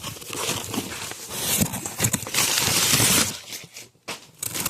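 Rustling, knocking and clicking as a cardboard parcel and its packing are handled, with a louder stretch of rustling in the middle.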